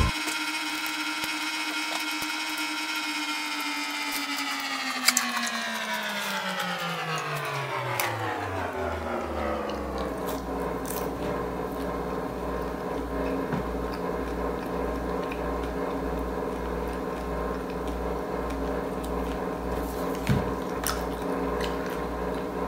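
A machine's hum with many tones together. It holds steady, then slides smoothly down in pitch over several seconds, and settles at a lower pitch with a low, even throb underneath.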